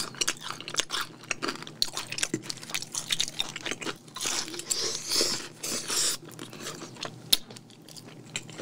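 Close-up chewing of a piece of boneless fried chicken coated in rose sauce, with many short clicks and mouth noises that are densest in the middle.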